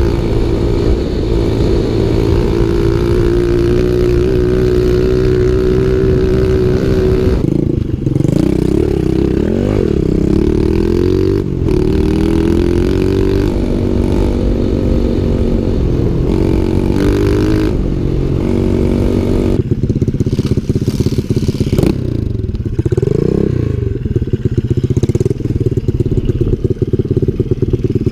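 Pit bike's small single-cylinder engine running under way, its revs steady at first, then falling and rising several times as the throttle is rolled off and on.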